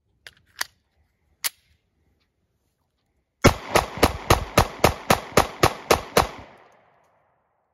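Taurus GX4 semi-automatic pistol fired in a rapid string of about eleven shots, about four a second, with the echo dying away after the last. Three sharp clicks come before the shooting.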